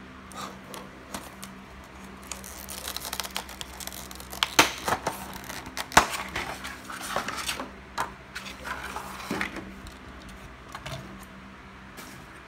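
Packaging being opened by hand for a 1/64-scale diecast model car: irregular rustling, tearing and crinkling with sharp clicks, busiest in the middle and easing off near the end.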